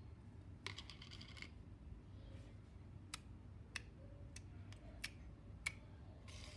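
Faint clicks and small pops from blue slime being handled and pressed, with a short squishy rustle about a second in and then about five sharp clicks at an even pace.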